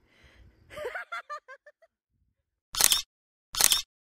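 A woman laughing in a quick run of short ha-ha pulses that fade out, then two camera shutter clicks about a second apart.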